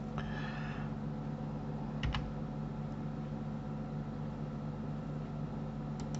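Computer keyboard and mouse clicks: a short rustle of a key press just after the start, a sharp double click about two seconds in and another near the end, over a steady low hum.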